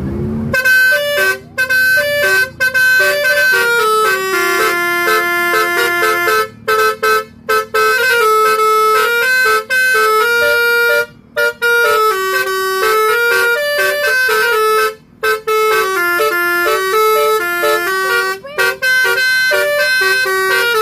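Telolet musical vehicle horn playing a tune: loud held notes stepping from pitch to pitch, starting about half a second in, with short breaks between phrases.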